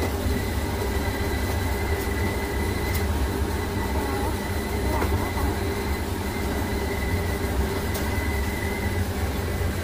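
Dough divider and its conveyor belt running: a steady mechanical hum with a low rumble and a thin, constant high whine.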